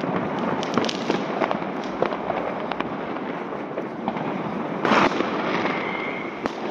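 New Year's fireworks and firecrackers going off all around: a continuous crackle of many bangs near and far, with a louder burst about five seconds in, followed by a short steady whistle.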